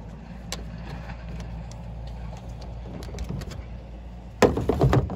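A steady low rumble with scattered light clicks and knocks, then about four and a half seconds in a short, loud cluster of heavy thumps as a dead wild pig is heaved onto the plastic-lined tailgate of a pickup.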